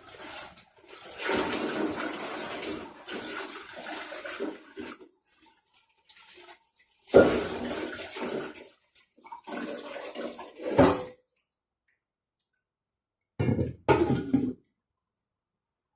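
Running water splashing in uneven bursts that start and stop. It cuts off about eleven seconds in, and two short splashes come near the end.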